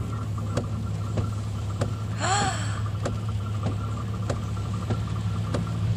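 Steady low hum of a car's engine and cabin while it sits in traffic in heavy rain, with irregular sharp ticks of raindrops hitting the car. About two seconds in, a person makes a brief voiced sound.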